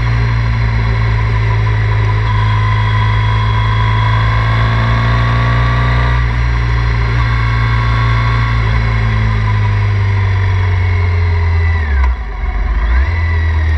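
Triumph Thruxton 900's parallel-twin engine running under way, its pitch easing slowly down as the revs fall. About twelve seconds in the sound dips briefly and the revs fall and then jump back up, as in a gear change.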